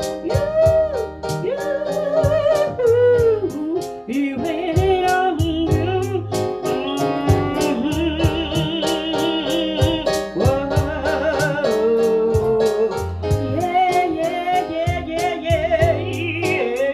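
A singer's voice, wavering with vibrato, held over chords played on an electronic keyboard with a steady beat.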